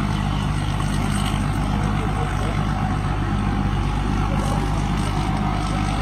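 A rice combine harvester's diesel engine running steadily as it harvests, a low even drone.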